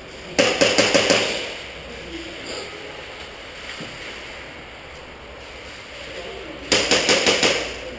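Airsoft guns firing two rapid bursts of several sharp shots each, one about half a second in and another near the end.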